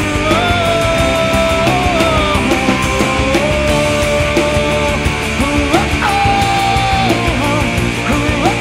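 Rock song, a full band playing an instrumental passage with no lyrics. A lead melody line is held on long notes that slide up or down between pitches.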